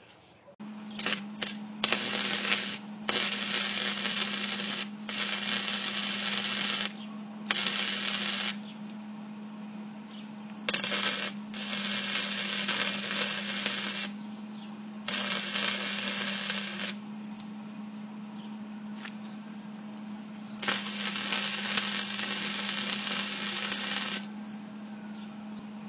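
Electric arc welding onto a broken-off bolt at the base of a lawnmower engine. The arc crackles in several runs of one to four seconds, stopping and restarting, over a steady low hum.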